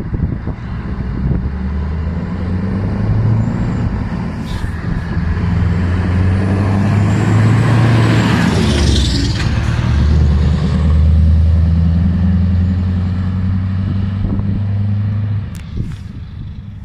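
Scania V8 truck engine under way, pulling a loaded trailer, as the truck drives up and passes close by. The deep engine note builds as it approaches, is loudest as it goes past about eight seconds in, holds steady as it pulls away, and falls off near the end.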